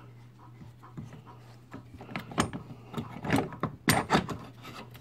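Metal clicks and clatter of a chainsaw chain being handled and taken off the vise of an Oregon 410-120 chain grinder, a close run of knocks and rattles in the middle couple of seconds.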